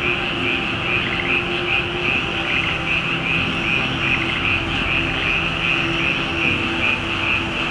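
A high-pitched chorus of calling insects, pulsing in a steady rhythm, over low sustained tones of background music.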